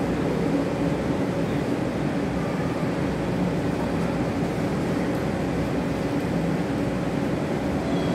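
Lifeboat's diesel engines running steadily at idle in the boathouse, a constant low hum with a few steady tones, as the boat waits on the slipway ready for launch.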